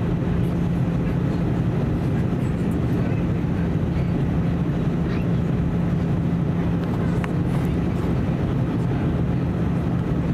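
Steady in-flight cabin noise of an Airbus A320: a constant low hum over an even rush of air.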